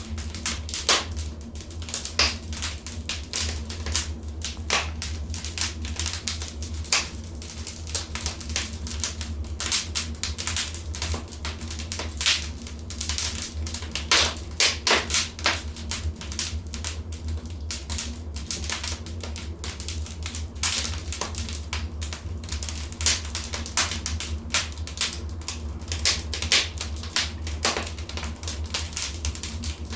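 Wood fire crackling and popping: irregular sharp snaps several times a second, with a few louder clusters, over a low steady rumble.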